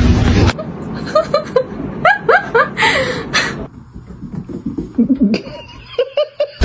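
Laughing in short bursts of snickers and chuckles, with a brief hiss of noise about three seconds in. A dense loud sound cuts off about half a second in before the laughter starts.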